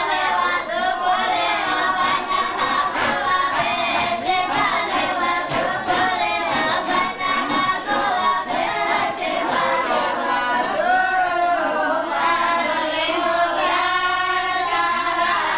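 A group of women singing together unaccompanied in long, sustained phrases: an Islamic devotional chant at a funeral gathering.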